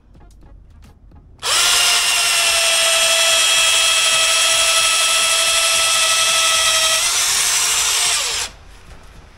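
Electric drill running steadily for about seven seconds, drilling a hole for cables; its pitch sags slightly near the end before it stops abruptly.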